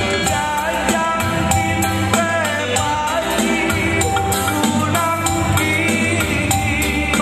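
Karo gendang dance music playing: a steady quick beat under a bending melody line.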